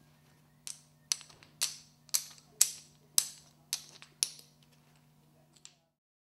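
A run of eight sharp clacks of hard objects striking, about two a second, each ringing briefly, over a faint steady hum. A last faint click comes near the end, then the sound cuts off.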